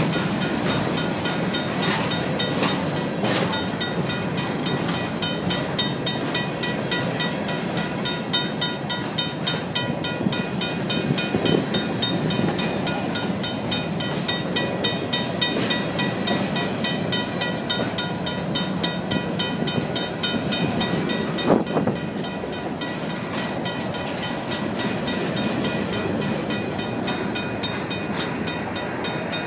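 Union Pacific grain train's covered hopper cars rolling past close by, wheels clattering and rumbling on the rails, with one louder clank about two-thirds of the way through. Over it the crossing's RACO mechanical bell rings with rapid, steady strikes.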